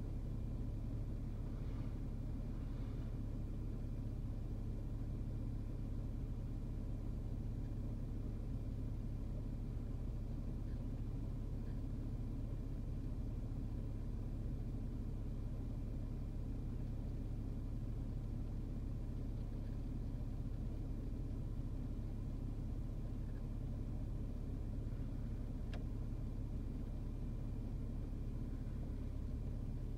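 Steady low rumble of a car heard from inside its cabin while it idles and creeps in slow traffic.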